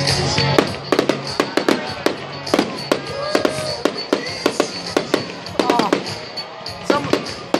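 Aerial fireworks going off: many sharp bangs and pops in quick succession.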